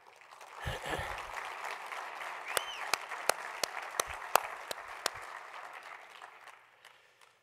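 Audience applause that swells and then fades out near the end. It is joined in the middle by a run of sharp, close hand claps, about three a second, from the speaker clapping at the podium microphone.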